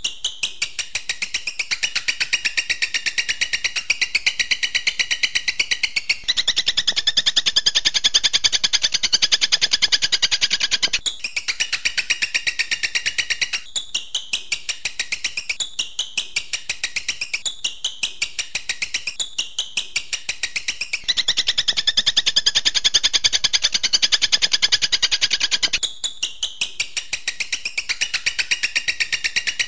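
Songbird masteran recording: a fast, even, rattling trill of rapid-fire 'tembakan' notes, kept up without a break. Its pitch and pattern change abruptly every few seconds, like spliced phrases.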